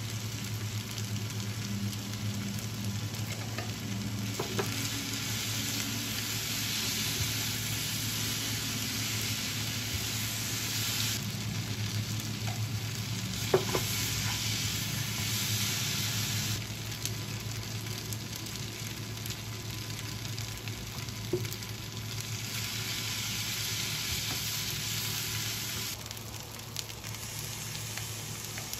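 Shrimp and vegetables sizzling as they are stir-fried in a nonstick frying pan, with a wooden spatula stirring and scraping. The sizzle swells and eases off in spells over a steady low hum, and the spatula knocks sharply against the pan a few times.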